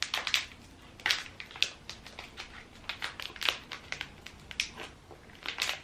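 A spoon scooping powdered sodium tetraborate (borax) for slime, with crinkling and scraping from its container: a scattered run of small irregular clicks and rustles.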